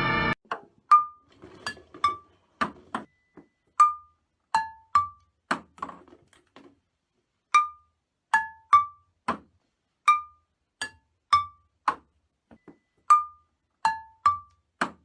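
Ping-pong balls bouncing off a table and off kitchen pots, pans and a metal cup: a string of sharp taps at an uneven pace, many of them ringing briefly at a clear pitch. Music cuts off just after the start.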